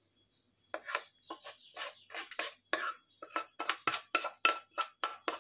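Wooden spatula scraping and knocking against a nonstick frying pan as sticky sautéed banana and walnut filling is pushed out into a bowl of batter: a run of short scrapes and taps that starts about a second in and comes faster toward the end.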